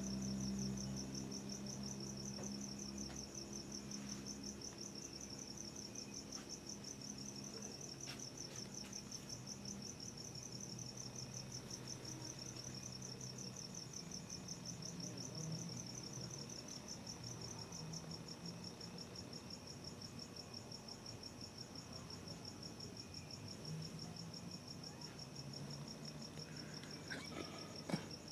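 A cricket chirping in a steady, rapid pulsing trill, with a faint low hum that is strongest in the first few seconds and a single sharp click just before the end.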